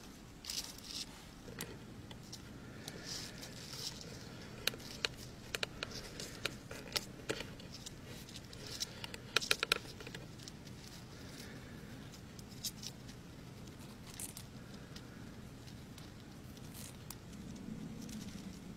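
Irregular small sharp clicks, taps and scratches, thickest in the middle with a quick burst of clicks about nine and a half seconds in, over a faint low hum.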